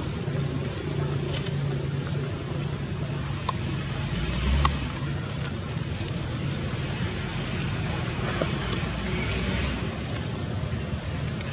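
Steady background road-traffic noise with a low hum, and a short low thump about four and a half seconds in.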